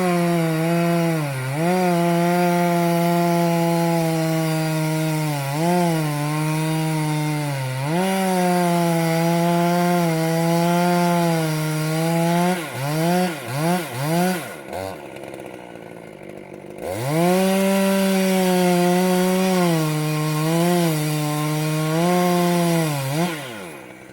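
Two-stroke chainsaw running at full throttle and cutting wood, its pitch sagging each time it bogs in the cut. About halfway through it gets a few quick blips of the throttle and drops to idle, then it goes back to full speed for a second cut and winds down near the end.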